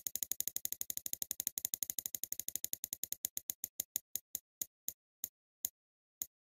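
Spinning prize-wheel sound effect: rapid clicks, about ten a second, that slow steadily to one every half second or so as the wheel winds down, stopping near the end.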